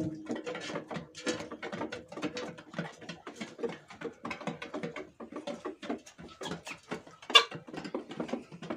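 Hens pecking feed from a metal tray: rapid, irregular tapping of beaks on the tray, with one louder knock about seven seconds in.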